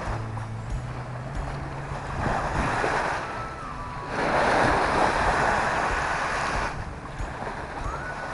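Small waves washing up on a sandy reservoir shore, with wind on the microphone. The wash swells twice, the second, about halfway through, the loudest.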